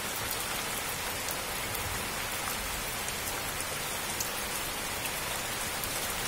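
A heap of live freshwater crabs scrabbling over one another in a plastic basin: a steady, rain-like crackling hiss of many tiny clicks.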